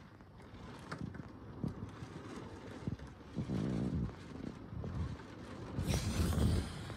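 Rain falling, with scattered taps of drops on window glass. A low rumble comes in about three and a half seconds in, and a louder rumble with a hiss about six seconds in.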